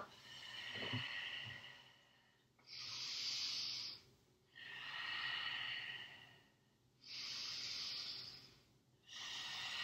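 A woman's deep, audible breathing: slow inhales and exhales alternating, five breath sounds of about one and a half to two seconds each, with short pauses between them.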